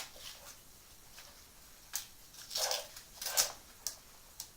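Tape being pulled off the roll and wrapped around a sump pump pipe: two short rasps about halfway through, with a few small clicks from handling.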